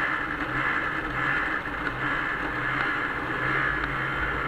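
1996 Arctic Cat Bearcat 340 snowmobile's two-stroke engine running steadily at cruising speed while the machine is under way, at an even level with no change in pitch.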